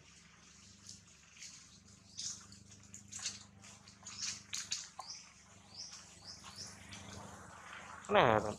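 Macaque monkeys calling in a tree: a scatter of short high chirps, then near the end one loud, short, wavering cry.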